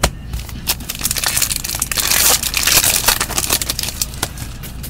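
Crinkling and crackling of a foil trading-card pack wrapper and a stack of cards handled in gloved hands, with many small sharp clicks, densest and loudest around the middle.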